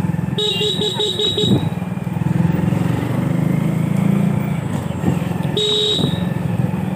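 Motorcycle engine running at low riding speed, with a horn sounding a rapid string of short beeps about half a second in and one brief toot near the end.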